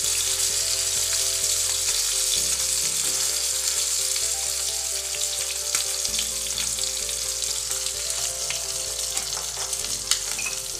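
Whole tilapia shallow-frying in hot oil in a pan: a steady sizzle with occasional small pops.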